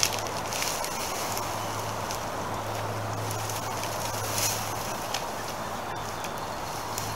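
Dry, matted old grass rustling and crackling as it is pulled off a pile and loaded into a wheelbarrow, with a few sharper crackles near the start and about four and a half seconds in, over a steady low hum.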